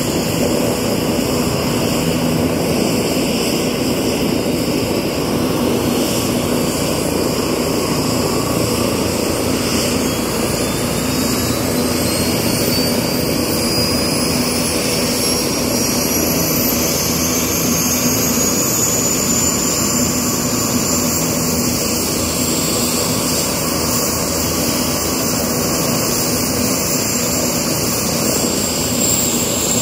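Bell 429 helicopter's turbine engines spooling up at start-up: a steady loud turbine rush, with a high whine that climbs in pitch from about a third of the way in and then holds steady.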